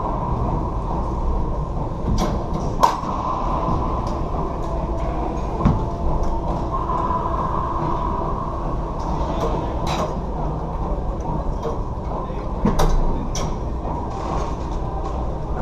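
Steady background noise on a racquetball court, broken by about five sharp single knocks of the rubber racquetball striking the court or a racquet, the loudest about three seconds in.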